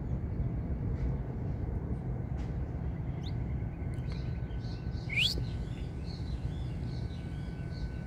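Saffron finches chirping in short high calls. There is one loud rising whistle a little past halfway, over a steady low rumble.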